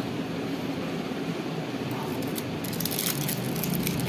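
A steady low background rumble. From about two and a half seconds in, crinkling and crackling as the plastic wrap and foil pouch of a swollen lithium-ion pouch cell are handled and peeled apart by hand.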